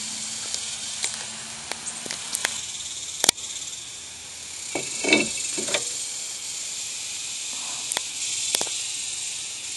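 Scattered metallic clicks and knocks, the sharpest about three seconds in, as the 11-inch front brake disc of a 1998 Chrysler Town & Country is turned by hand and slid off the wheel-hub studs, over a steady high hiss.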